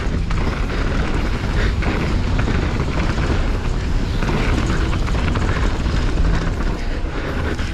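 Wind buffeting a bike-mounted camera's microphone at speed, a steady low rumble, with the crunch and rattle of mountain bike tyres rolling fast over a gravel track.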